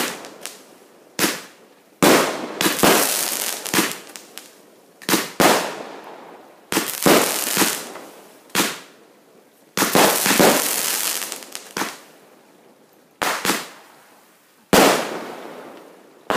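Aerial fireworks launching and bursting: a string of sharp bangs about one to two seconds apart, each fading away over about a second, with a pause of about two seconds before the last few.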